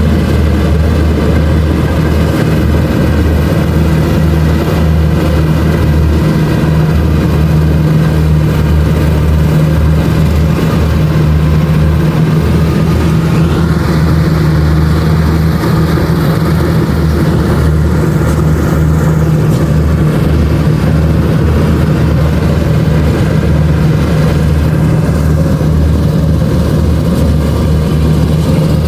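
Kubota DC-70 Plus rice combine harvester's diesel engine running steadily under load, a deep continuous drone with a slight shift in its higher whine about halfway through.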